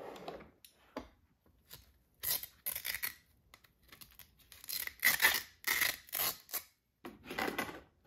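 Fabric mop pad of a Neabot NoMo Q11 robot vacuum being peeled off its plastic mop plate: a series of short tearing rips, in two runs a couple of seconds apart.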